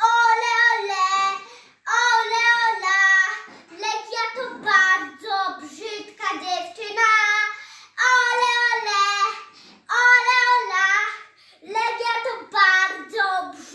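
A young girl singing a football supporters' chant on her own, in short repeated phrases with brief pauses for breath between them.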